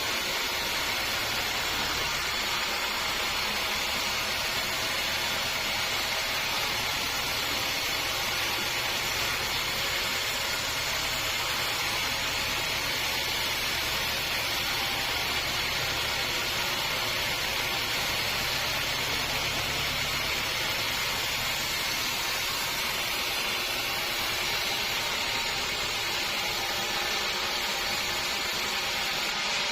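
Sawmill running steadily, an even, unbroken noise with a low hum underneath.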